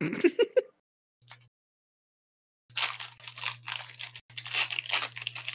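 Foil booster-pack wrapper being torn open and crinkled by hand: two spells of crackling rustle, each about a second and a half long, starting nearly three seconds in.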